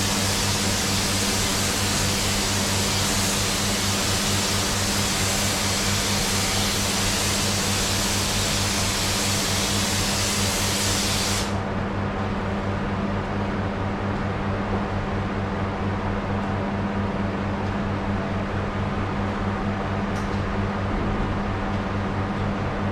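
Paint spray gun hissing as it sprays a coat of grey paint, stopping abruptly about eleven seconds in. A steady fan hum runs underneath throughout.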